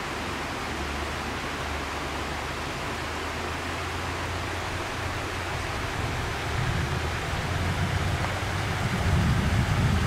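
Steady rushing of a shallow mountain stream, with a low steady hum beneath it. From about six and a half seconds in, gusts of wind buffet the microphone, growing louder toward the end.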